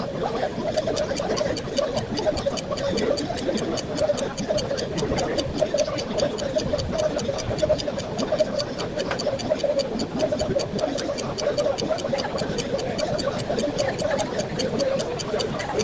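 Fast, even ticking, several ticks a second, like a clock, over a steady mid-pitched background hum.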